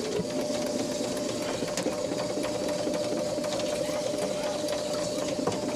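Ridgid K9-204 FlexShaft drain cleaner, driven by a drill, running with its cable spinning inside the kitchen sink drain line. It makes a steady motor whine with quick, irregular ticking as the cable knocks against the pipe.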